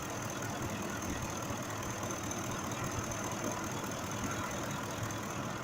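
2005 Ford F-150's 5.4 V8 idling steadily, with cylinder 2 now firing normally and no longer misfiring.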